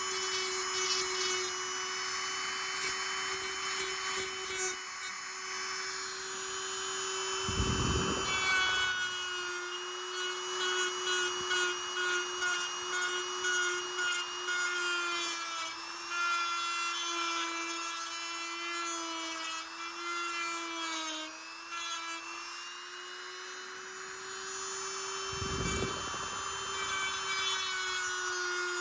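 Handheld rotary tool with a small cut-off wheel running and cutting into a steel knife blade: a steady high whine with grinding hiss, its pitch sagging a little now and then. Two low thuds, about eight seconds in and near the end.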